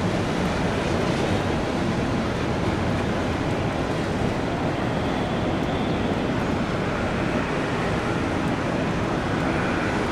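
Jet airliner engines running: a steady rushing noise, with a faint high whine that comes through about halfway in.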